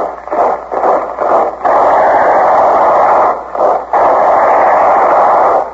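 Loud, harsh din of old-time radio drama sound effects: a rapid patter of short bursts for about a second and a half, then a steady roaring noise with two brief breaks.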